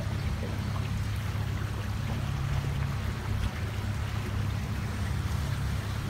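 Small motorboat engine running steadily with a low hum, with water washing along the hull.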